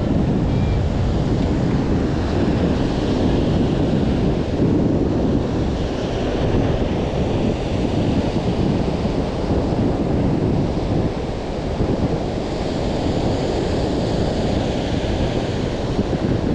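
Ocean surf breaking and washing up a sandy beach, its hiss swelling twice, with wind buffeting the microphone.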